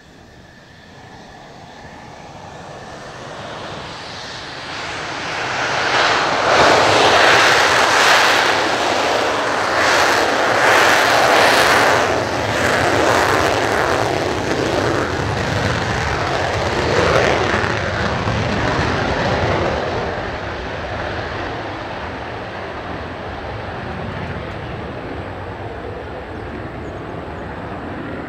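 A Mitsubishi F-2 fighter's single General Electric F110 afterburning turbofan on the takeoff roll. The roar swells over the first few seconds and is loudest and crackling about six to twelve seconds in, with the afterburner lit. It then slowly fades as the jet climbs away.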